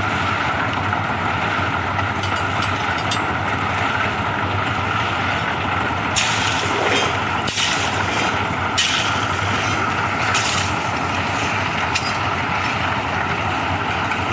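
Concrete mixer machine running steadily on a building site, with a few short hissing bursts over its noise about halfway through.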